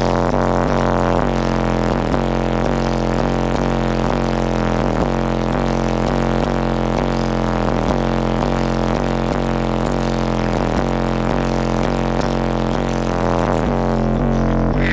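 Competition car audio system with large subwoofers playing bass-heavy music at full volume, heard inside the truck cabin. A deep, steady bass drone is held under falling tones that repeat about once a second.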